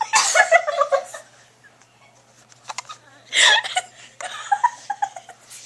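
Giggling and laughter in short breathy bursts, with a quieter gap about two seconds in.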